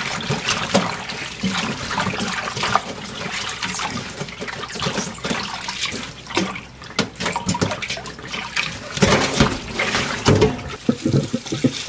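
Water splashing and sloshing in a stainless steel bowl as young cabbage leaves are swished and rinsed by hand. Toward the end the bowl is tipped and its water poured out into the sink in a heavier gush.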